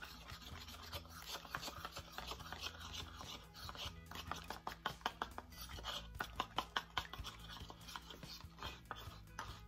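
A metal spoon stirring a little liquid in a small bowl, clicking and scraping rapidly against its sides, with the clicks thickest about midway. Background music plays underneath.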